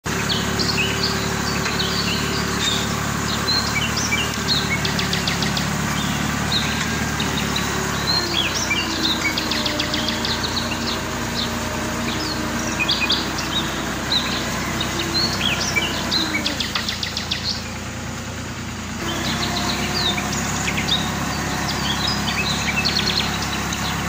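Small birds chirping and twittering in quick, repeated notes over the steady drone of a tractor engine. Both drop away for a couple of seconds about three-quarters of the way through, then carry on.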